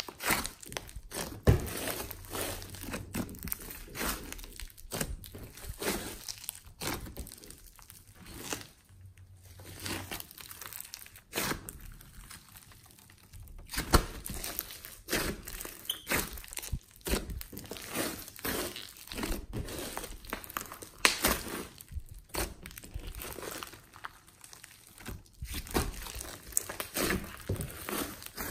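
Hands squeezing, folding and stretching a large lump of glossy slime mixed with foam beads, giving dense, irregular sticky crackles and clicks, with a few quieter pauses.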